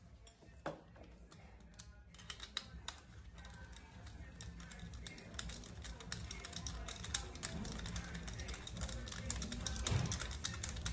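Rapid small metallic clicks and rattles of a compression tester's threaded adapter and fittings being handled and screwed into a cylinder port of a 1.8 turbodiesel engine. The clicking grows denser and louder over the last few seconds.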